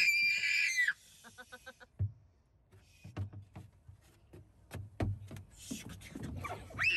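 A young child's high-pitched squeal of delight, then a quick run of giggles. Scattered knocks and low thumps follow as he moves about the playground climbing frame, and another squeal comes near the end.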